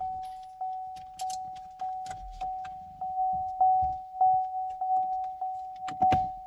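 Cadillac CTS Vsport's interior warning chime repeating steadily, a single mid-pitched ding a little under twice a second, with faint clicks of trim being handled.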